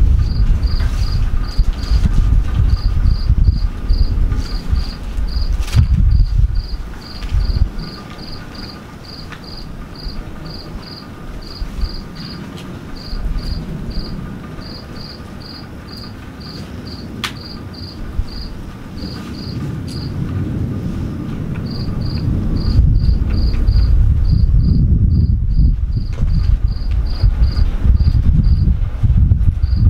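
A cricket chirping steadily in short, high, evenly spaced chirps, about three a second. A loud low rumble lies under it near the start, dies away about seven seconds in, and builds again from about twenty seconds on.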